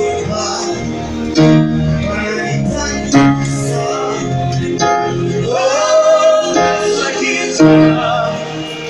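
Live band music with singing: bass, keyboard and guitar under a sung melody, with a long rising vocal run about halfway through.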